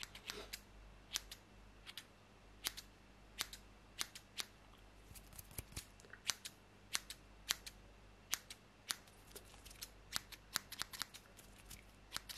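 Scissors snipping close to the microphone in a mock haircut: a string of sharp, separate snips, about two a second, coming faster and closer together near the end.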